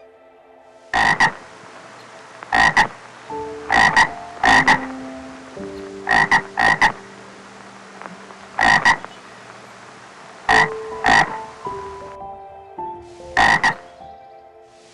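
Short, loud animal calls, mostly in quick pairs, repeating every second or two over soft held tones that shift in pitch.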